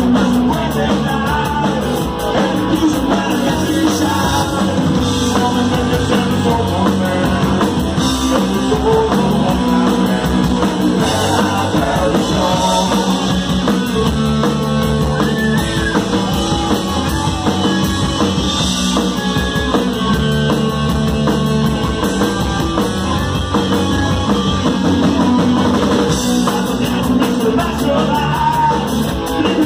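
Live punk rock band playing loud: electric guitars, bass guitar and drum kit, with a singer.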